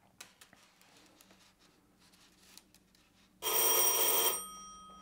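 An electric doorbell rings once for about a second, about three and a half seconds in, its tone ringing on and fading away over the next two seconds. Before it, faint clicks of small handling.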